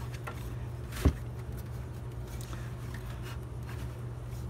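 A single sharp knock about a second in, as the sheet-steel frame of a desktop computer case is pulled by hand, with faint scraping and a steady low hum underneath.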